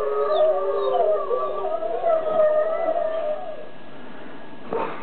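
Several wolves howling together, long wavering howls overlapping in a chorus, played through a television's speaker. The howling dies away about three and a half seconds in.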